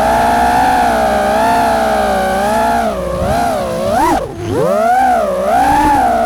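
FPV freestyle drone's brushless motors whining with the throttle, steady for a few seconds and then swooping up and down in pitch, with a sharp drop and recovery about four seconds in.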